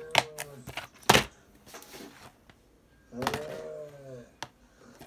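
Plastic DVD keep-case being handled, with a sharp click about a second in and a few lighter clicks. A wordless voice murmurs briefly at the start and again for about a second from three seconds in.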